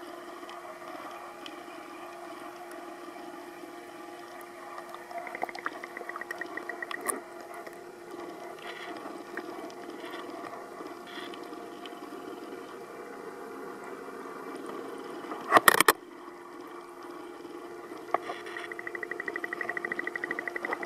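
Steady hum of reef aquarium pumps and water flow. A brief loud clatter comes about three-quarters of the way through, and a fast buzzing rattle comes in near the end.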